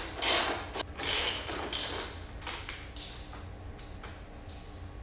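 Ratchet wrench clicking in three short bursts in the first two seconds as screws on a motorcycle's passenger-peg bracket are backed out, then quieter handling of the loosened parts.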